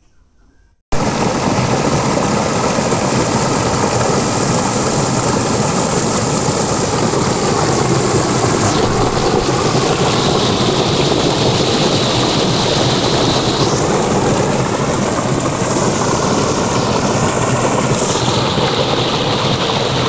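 Muddy river floodwater gushing and churning right at the microphone, a loud steady rush that starts abruptly about a second in: the river is in spate and pouring into the village.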